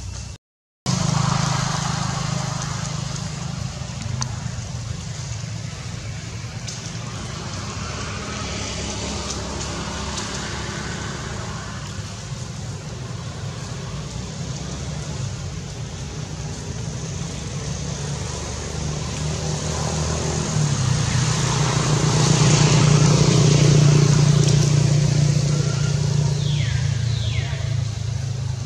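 An engine running steadily nearby, growing louder about three-quarters of the way through and then easing off. Two short falling squeaks near the end.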